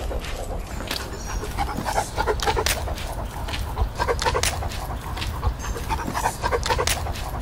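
A dog panting and making short sounds in a few brief bouts about two seconds apart, over a steady low rumble.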